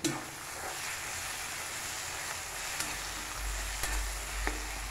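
Spring onions and spices frying in oil in a kadai, giving a steady sizzle. A few light clicks of a spoon against the pan come in the second half.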